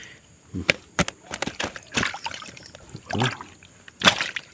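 Water sloshing and splashing in a fishing bag as a live giant gourami is held in it, with a dozen or so irregular sharp slaps and splashes, the loudest near the end.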